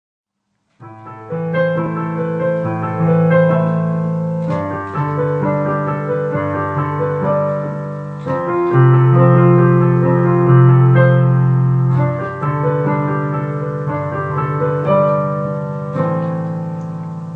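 Background music: a piano plays slow, held chords that change every couple of seconds, starting about a second in.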